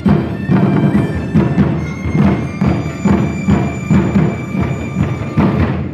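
Live Chinese drum and folk-instrument ensemble: barrel drums beat a steady pulse of about two strokes a second under a held melody from transverse bamboo flutes with plucked lute. The piece stops right at the end.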